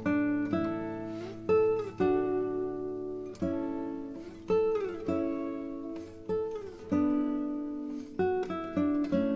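Background music: an acoustic guitar playing a slow plucked melody, notes struck every half second to a second and left to ring, some with short slides in pitch.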